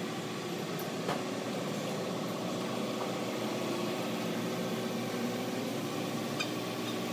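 Pickup truck engine idling steadily, with a faint click about a second in.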